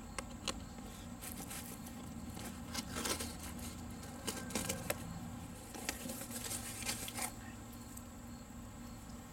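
A knife slitting the packing tape on a cardboard box, then the cardboard flaps being pulled open: a quiet scatter of short scrapes, rips and rustles.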